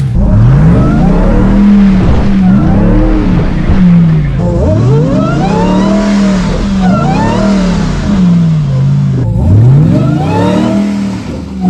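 Ram TRX's supercharged 6.2-litre V8 revved hard again and again, its pitch rising and falling in repeated swells every second or two, as the truck bumps its way up a rock ledge under throttle.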